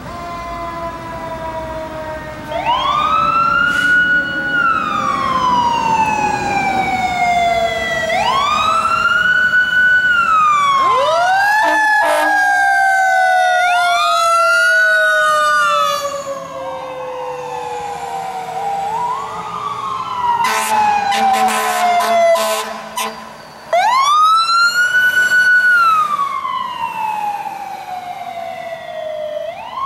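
Fire engine and rescue sirens wailing code 3, each cycle rising quickly and then falling slowly, repeating every few seconds. Two sirens overlap out of step at times.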